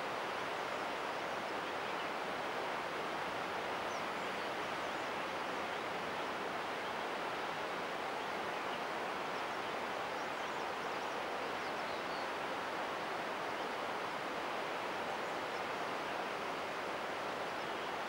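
Steady outdoor background hiss: an even rushing noise that does not change, with no distinct events standing out.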